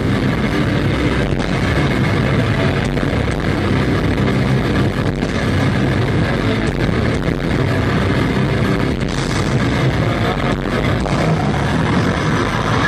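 Death metal band playing live on stage: heavily distorted electric guitars, bass and drums in a dense, loud, unbroken wall of sound.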